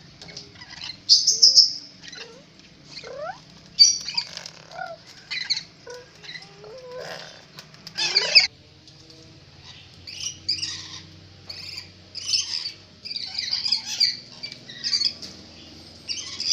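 Rainbow lorikeet chattering: a rapid run of short, high, shrill chirps and squawks, with louder screeches about a second in and about eight seconds in.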